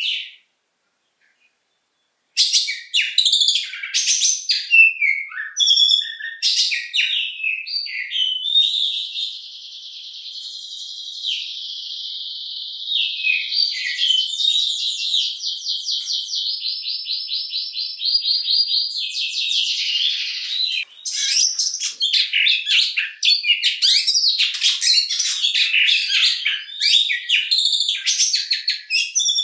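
An oriental magpie-robin sings after about two seconds of silence. The song is a run of varied sharp, high whistles and chips, broken in the middle by a long, rapid buzzing trill of about ten seconds, after which the varied notes return.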